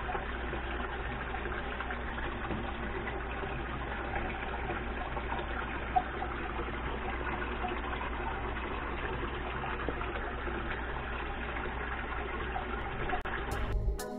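Steady, muffled rushing water picked up by a camera held under water, with one brief knock about six seconds in.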